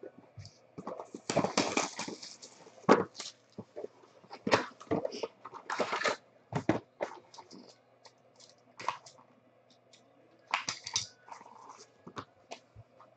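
Cardboard trading-card box being opened and handled: a string of scraping and rustling sounds and light knocks as the lid and the inner box slide out.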